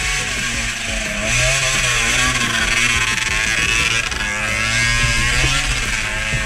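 Off-road dirt bike engine running under load, its pitch rising and falling as the rider works the throttle.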